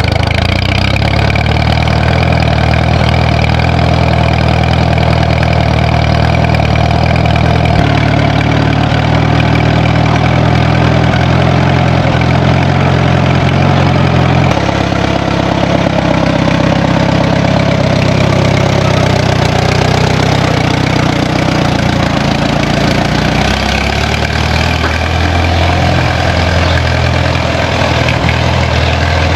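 Tractor engine running steadily, its sound changing abruptly about 8 seconds in and again about 14 seconds in.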